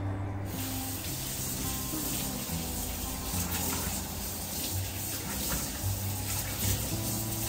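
Kitchen tap turned on about half a second in, then water running steadily into the sink, with background music underneath.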